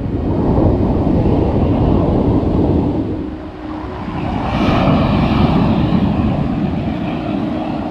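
Motorcycle on the move: engine running under heavy wind noise on the microphone. It dips about three seconds in, then swells louder and brighter about a second later.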